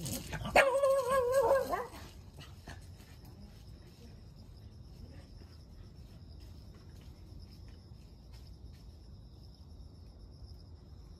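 A dog gives one drawn-out call with a wavering pitch, a little over a second long, near the start. After it a faint, steady high chirring of insects carries on.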